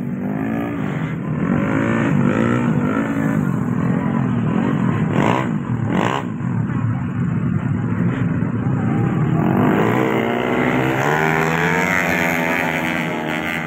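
Two-stroke 125 cc underbone racing motorcycles revving hard as they pass, engine pitch rising and falling. A second run of high revving builds in the last few seconds.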